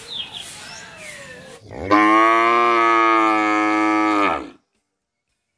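Cow mooing: one long, steady moo lasting about two and a half seconds, starting about two seconds in and cutting off sharply.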